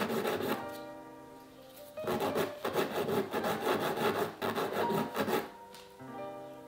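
Nail file rasping back and forth across a fingernail in quick strokes to shorten it, in two spells: briefly at the start, then again from about two seconds in for about three and a half seconds. Soft background music shows through in the pauses.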